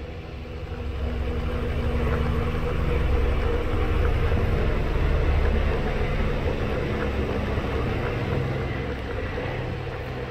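Steady electric hum of a flood coolant setup running, from the disc oil skimmer's small motor and the coolant pump, with coolant trickling. It grows louder a couple of seconds in and eases toward the end.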